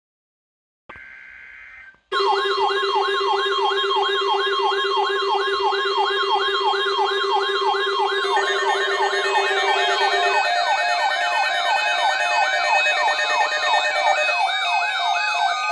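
A brief burst of EAS data-header tones, then a loud warbling electronic alert siren sweeping up and down about two and a half times a second over a steady tone. Extra steady beeping tones join it about eight seconds in. Together they are the alert signal that comes before a severe thunderstorm watch broadcast.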